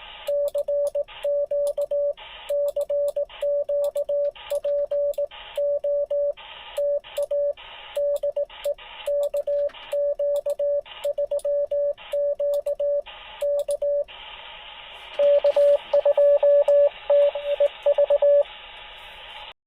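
Morse code (CW) from an amateur radio transceiver on the 10-meter band: a single steady tone keyed on and off in dots and dashes, with receiver hiss behind it. About fifteen seconds in, the hiss turns steady and a louder run of code comes through.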